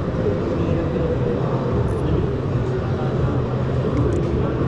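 Steady background din with faint, indistinct voices in it; no single sound stands out.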